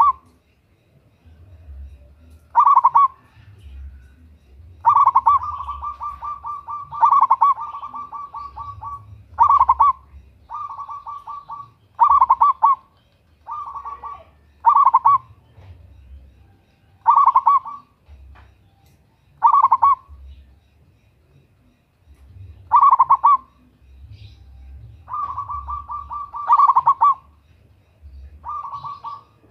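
Zebra dove (perkutut) cooing: about a dozen short, rolling coo phrases a second or two apart, some drawn out into longer trilled runs.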